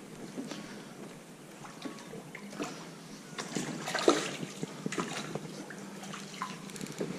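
Hooked crappie splashing and water trickling at the surface as it is reeled in to the boat, in irregular light splashes and clicks, the loudest about four seconds in.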